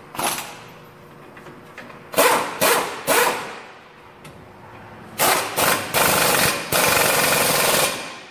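Air impact wrench tightening a front suspension nut, hammering in short bursts: three around two to three seconds in, then several more from about five seconds in, the last held for over a second.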